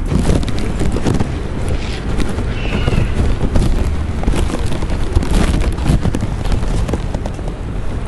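Crunching footsteps at a walking pace, roughly one a second, over continuous crackling and rustling, with wind rumbling on the microphone.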